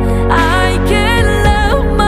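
Music: a song with a sung melody, its notes sliding and wavering, over held bass notes.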